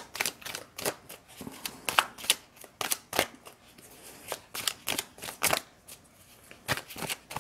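A deck of tarot cards shuffled by hand: an irregular run of sharp card snaps and flutters, with a couple of short pauses.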